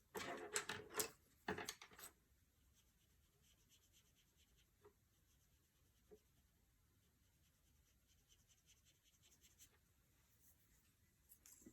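Watercolor brush pen strokes rubbing on paper: a few louder scratchy strokes in the first two seconds, then faint, light strokes.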